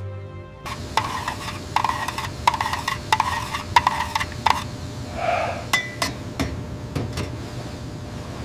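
Repeated light clinks and knocks, as of dishes or utensils being handled, over a steady hiss.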